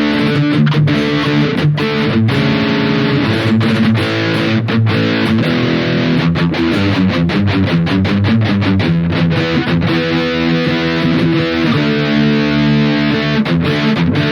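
Harley Benton ST80 FR HH electric guitar played through a high-gain distorted tone: a riff mixing sustained chords and quicker single-note runs, with brief stops between phrases.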